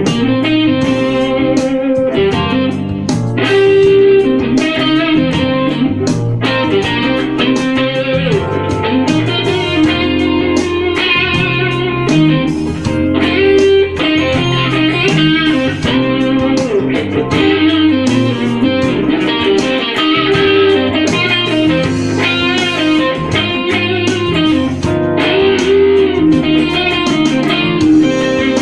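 Electric guitar playing a blues lead over a C minor backing track, its tone lightly overdriven by an Ibanez Tube Screamer-style overdrive plug-in, with reverb and delay added.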